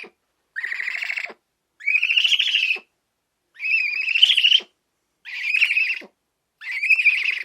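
An animal calling five times in a row: loud, harsh, high-pitched calls about a second each, rising slightly in pitch within each call.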